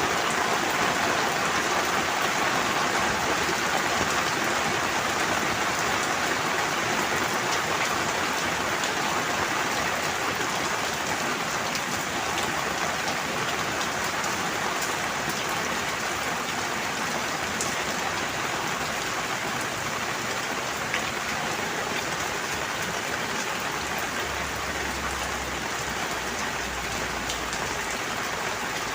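Steady rain falling, an even hiss with fine scattered drop ticks, easing slightly over the stretch.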